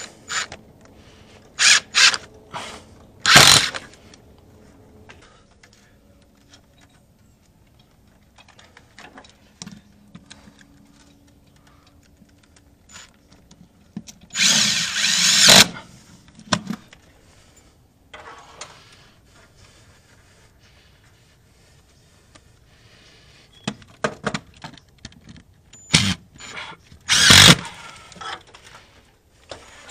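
Cordless drill/driver running in several short bursts as it drives screws through cable clips into a stucco wall to fasten a coaxial cable; the longest run, about a second and a half, comes midway.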